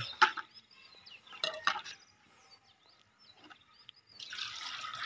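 Water poured from a plastic bucket into a plastic bowl: a few knocks as the bucket is handled, then from about four seconds in a steady splashing pour.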